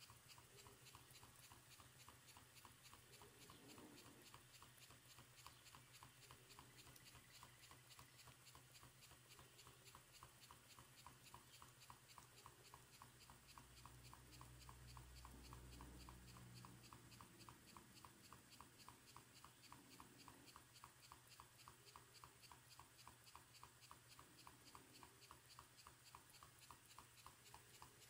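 Faint, even ticking of a small twin-cylinder steam engine running, several beats a second, with a low hum that swells briefly about halfway.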